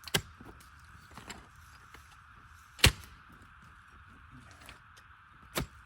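Three sharp strikes of a digging tool driven into hard, root-filled ground, roughly two and a half seconds apart, the middle one the loudest.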